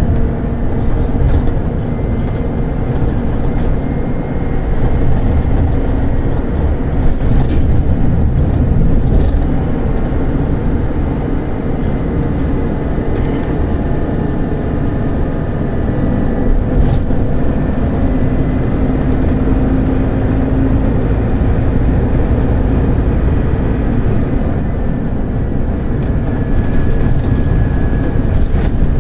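Inside a Scania K280UD bus: its Scania DC9 five-cylinder diesel running hard under full throttle on an uphill climb, a loud, steady low drone. A whine rises in pitch and strengthens around the middle, with scattered clicks and knocks from the bus body throughout.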